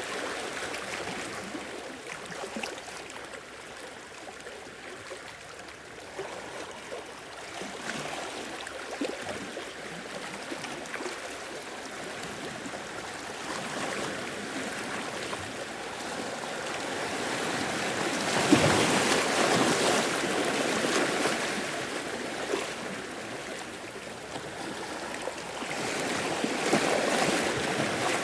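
Sea waves washing ashore in slow swells, loudest about two-thirds of the way through and again near the end.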